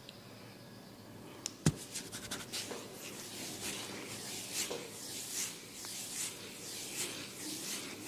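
Repeated scratching strokes through hair on a scalp, about one and a half a second. They follow a few sharp clicks, one of them loud, about a second and a half in.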